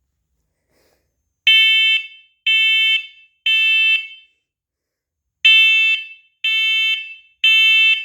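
First Alert smoke alarm sounding its test alarm in the temporal-three pattern. It gives two sets of three loud, high-pitched beeps about a second apart, with a pause between the sets, starting about a second and a half in.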